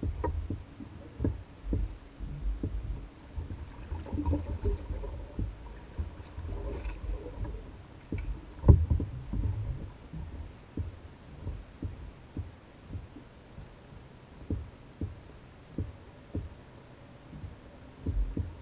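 Water lapping and slapping against the hull of an Old Town Guide 119 canoe as it bobs, a low soft thump about every second, with one sharper knock about halfway through.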